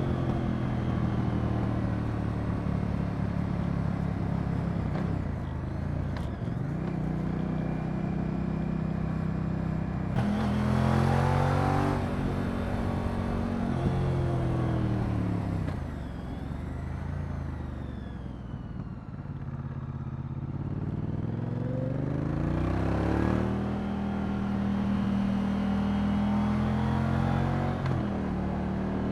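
Moto Guzzi V100 Mandello's transverse V-twin engine running under way, its pitch climbing and stepping back repeatedly through gear changes. Around the middle it eases off, the pitch falling and the sound getting quieter, then it accelerates again.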